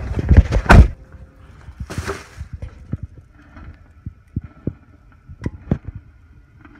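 Rustling and a loud low thump about a second in. Then a Mr. Coffee drip coffee maker brewing, with soft, irregular low pops and gurgles.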